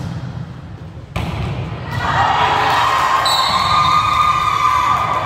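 A volleyball struck hard twice, about a second apart, echoing in a large gym. The ball strikes are followed by a sustained loud shout from players and spectators.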